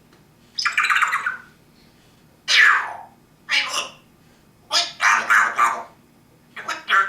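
A pet parrot calling loudly five times in a row, with short pauses between the calls. One call near three seconds in falls in pitch, and one about five seconds in comes as several quick pulses.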